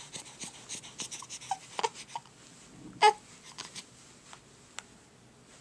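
Baby's small breathy grunts and squeaks, with one short, loud squeal about three seconds in and faint soft clicks between.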